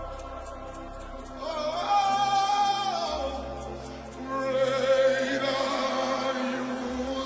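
Worship music: a voice sings two long, wordless held notes over steady sustained backing. The first note rises and swells about a second and a half in and falls away around three seconds; the second begins a little past four seconds and is held to the end.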